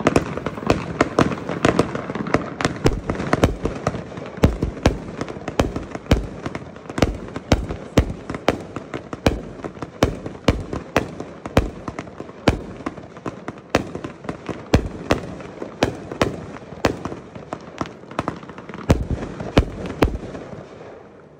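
Geisha consumer firework combination cake firing: a long run of sharp shots and bursts, two to three a second, over a continuous noisy wash, dying away just before the end.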